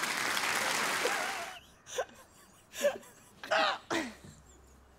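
A rushing hiss about a second and a half long, then several short grunts and throat noises from a person, with quiet between them.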